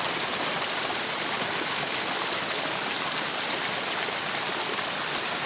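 Steady rushing of flowing water, an even noise that neither rises nor falls, with a constant high hiss over it.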